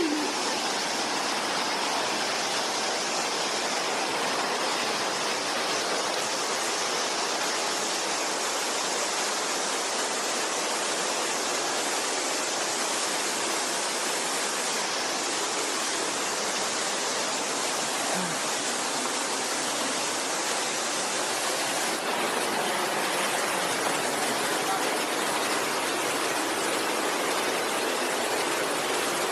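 Waterfall water pouring steadily, an even rushing hiss with no letup.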